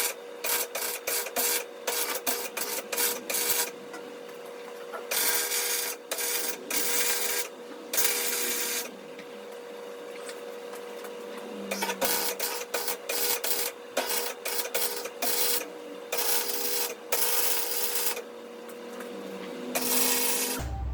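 Welding on a steel vehicle frame: the arc crackles in short, stop-start bursts, a fraction of a second to about a second each, over a steady hum.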